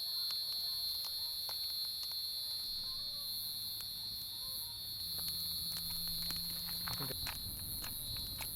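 Steady high-pitched insect chorus in the bush, with small scattered crackles and snaps from a campfire being lit.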